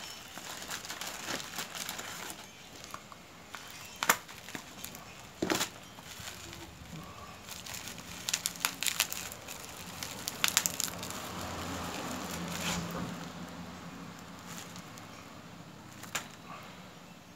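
Plastic packaging wrap being crinkled and torn off by hand, with scattered sharp crackles and snaps.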